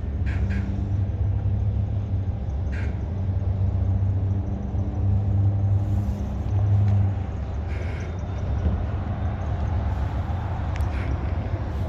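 Diesel locomotive running with a steady low rumble and hum, loudest about five to seven seconds in, with a few brief high chirps.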